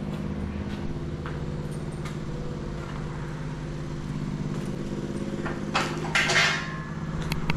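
A motor running with a steady hum. Light metallic clicks sound through it, and a short burst of hiss comes near the end.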